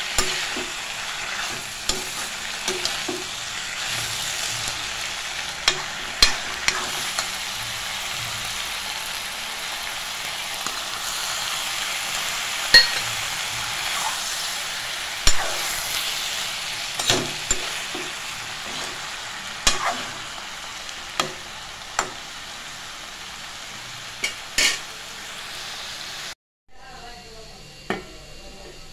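Snake gourd and potato pieces sizzling steadily as they fry in a steel kadai, stirred with a metal spatula that clicks and scrapes against the pan at irregular moments. Near the end the sizzle drops away to a much quieter hiss.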